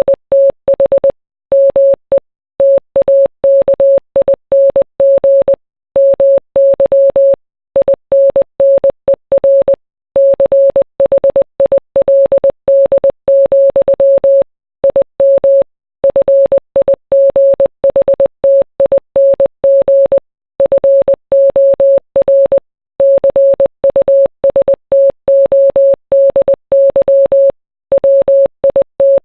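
Morse code: a single steady beep tone keyed on and off in short dots and longer dashes, with longer pauses every second or two between words. It spells out song lyrics as code.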